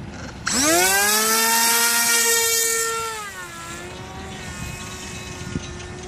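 Prototype 1300 kV electric RC motor with a 10x6 propeller on 4S spooling up to full throttle about half a second in, a loud high whine rising quickly and holding for about two and a half seconds. It then drops in pitch and quietens as the flying wing climbs away.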